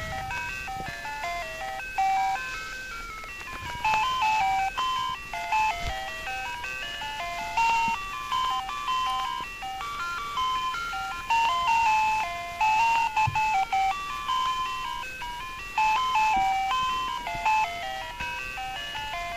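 A simple electronic melody of short stepped beeping notes, like a ringtone tune, playing in phrases that restart about every two seconds.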